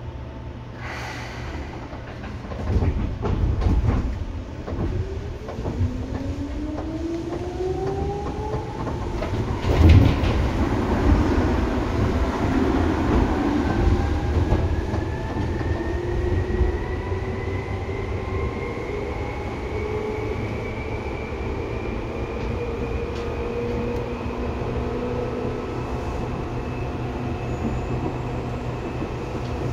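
Seibu 2000 series electric train pulling away and accelerating. There are several clunks as it starts, then the traction motors whine, with several tones climbing steadily in pitch. A sharp click comes about ten seconds in, and the whine then levels off into steady running on the rails.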